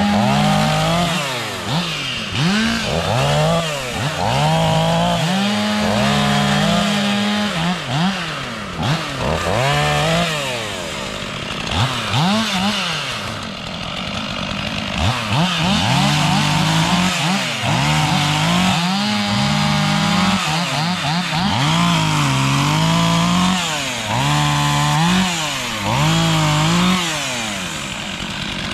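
Two-stroke chainsaw cutting diseased ash wood, its engine revving up and dropping back again and again, with short spells of steady running between cuts.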